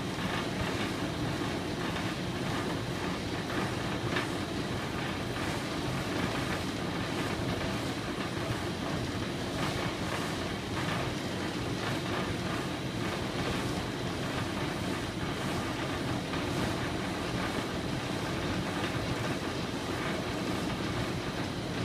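Towboat diesel engine running steadily: a constant drone that does not change.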